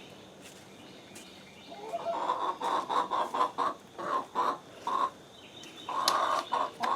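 Backyard hens clucking in a quick run of short, repeated calls starting about two seconds in, with another burst near the end.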